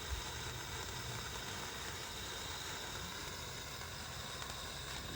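Steady background noise: an even hiss with a low rumble underneath and no distinct events.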